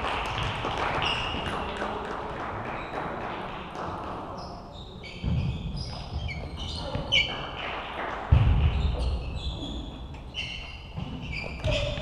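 Table tennis ball clicking off the rackets and table in a serve and rally, with a few heavier low thuds of the players' footwork.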